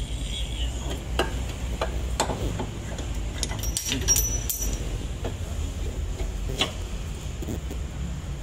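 Scattered metallic clinks and knocks of a front shock absorber and its fittings being handled and set in place among the suspension parts, with a quick cluster of ringing clinks about four seconds in, over a steady low rumble.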